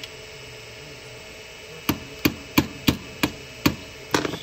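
Hammer striking metal, about seven sharp blows roughly three a second starting about two seconds in, over a steady hum. The blows are driving against a seized PCC streetcar brush holder to free its spring and pin.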